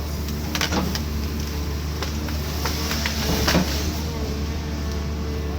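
Cat 320D2 excavator's diesel engine running steadily, with several short sharp cracks and creaks over it, the loudest about three and a half seconds in.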